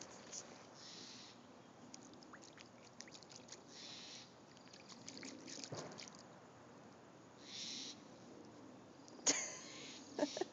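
Water splashing and trickling in a bird bath in short bursts, with scattered small clicks and a sudden louder sound near the end.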